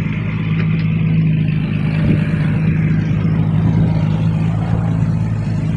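Excavator's diesel engine running at a steady speed, a constant droning hum.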